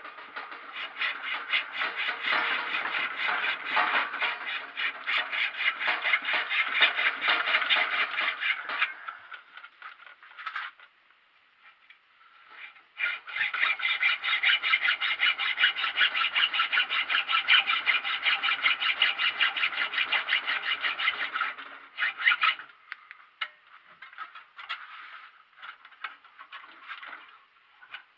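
Hand hacksaw cutting a workpiece clamped in a vise: two long runs of steady back-and-forth rasping strokes with a pause of a few seconds between them, then lighter, scattered strokes near the end. The blade is worn, and a new one would cut better.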